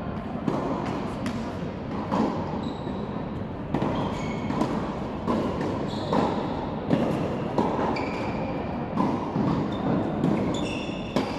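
Tennis balls being struck by rackets and bouncing on an indoor hard court: an irregular series of sharp pops, one or two a second, echoing in the large hall, with short high shoe squeaks between them.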